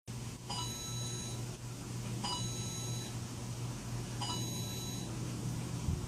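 Three electronic beeps, each just under a second long and about two seconds apart, over a steady low hum.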